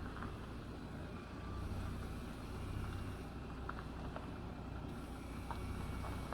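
Jeep Gladiator Rubicon engine running steadily at low revs while crawling over rocks, a low rumble with a few faint clicks.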